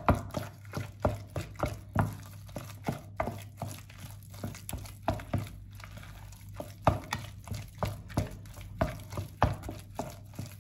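A bare hand squishing and mixing wet blended fish paste with coconut milk and egg white in a plastic tub: irregular wet squelches and slaps, two or three a second. A steady low hum runs underneath.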